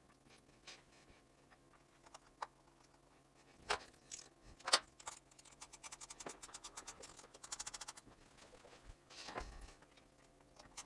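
Faint small metal clicks and taps of the upper controller mounting bolts being started by hand, with a quick run of light ticks in the middle.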